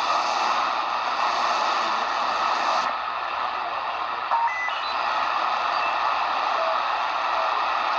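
Degen DE1103 shortwave receiver in AM mode giving out static hiss while being tuned down through the 80-meter band. The hiss dulls about three seconds in, a click follows about a second later, and brief whistles of carrier tones come and go as the tuning passes signals.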